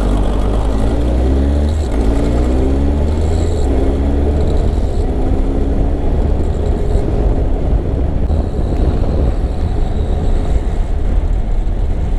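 Kawasaki ZR-7S's air-cooled inline-four engine under way, its pitch climbing in several steps over the first half and then running steadily. The engine carries an abnormal mechanical noise that the rider suspects comes from a faulty automatic cam chain tensioner.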